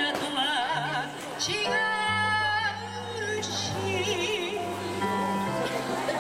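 A woman singing a song live with vibrato, holding one long note about two seconds in, over amplified keyboard and guitar accompaniment.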